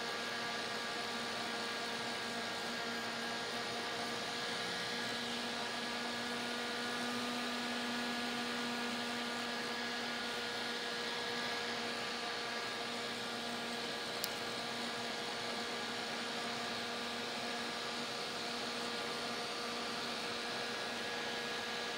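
Small plastic electric fan running steadily close by, a constant rush of air with a steady motor hum. One brief click about fourteen seconds in.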